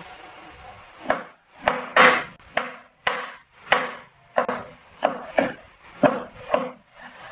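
Kitchen knife chopping tomatoes on a plastic cutting board: a run of knife strokes, each a sharp knock, coming about twice a second at an uneven pace.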